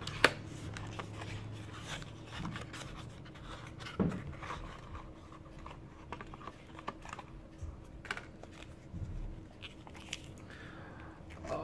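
Small paperboard box being opened and unfolded by hand, with scattered light clicks, taps and paper rustles as the washi tape rolls are taken out. There are sharper clicks about a quarter second in and again at about four seconds.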